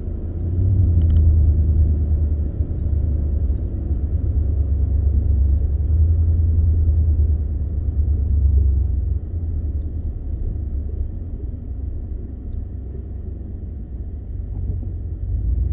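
Low, steady rumble of a 2015 Ford F-150 with its 5.0 V8 being driven, heard from inside the cab: engine and road noise. It swells about a second in and eases off toward the end. The truck is running on a freshly fitted stock throttle body, with no sign of the earlier surge-and-drop at idle.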